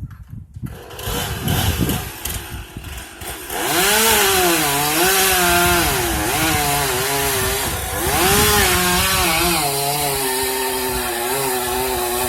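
Chainsaw up in a tree: about three and a half seconds in it comes up loud, its engine pitch rising and falling as it is throttled through the cuts, then holding steadier near the end.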